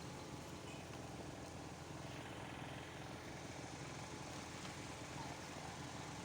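Refrigerator cooling fan motor running with a steady hum, its bearing freshly oiled after it had been turning too slowly.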